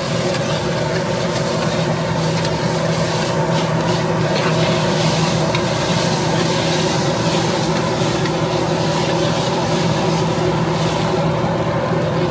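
Rice noodles stir-fried on a flat iron griddle: metal spatulas scrape and toss them over a sizzle, under a steady machine hum.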